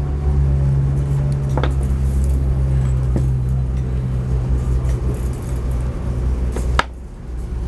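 A steady low engine drone that cuts off suddenly near the end, with a few sharp clicks over it.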